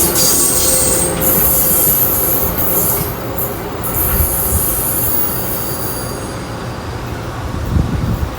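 Train running on the rails, with a high hissing noise and thin steady high tones from the wheels over a low rumble; the high noise fades about halfway through, leaving the low rumble.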